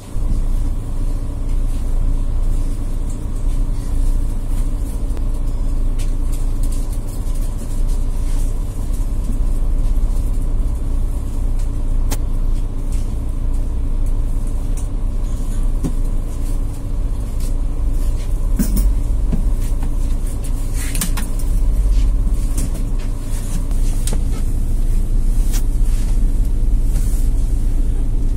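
Mercedes OM936 inline-six diesel of a Citaro C2 G articulated bus idling steadily, heard from inside the passenger cabin, with a constant low rumble. Scattered clicks and knocks, and a brief hiss about two-thirds of the way through.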